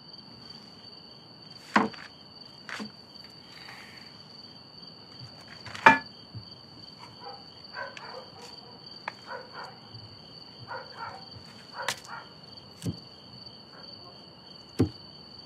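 Crickets chirring in a steady, unbroken trill, with a handful of sharp clicks and soft rustles from food wrapped in paper being handled at the table.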